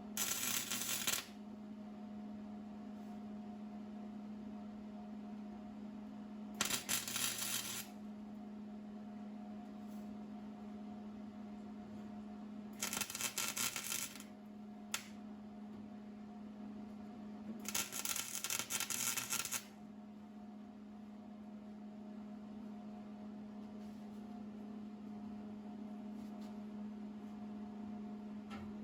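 Welder tack-welding a steel brace to the body, four separate crackling bursts about a second or two each, with a steady low hum underneath throughout.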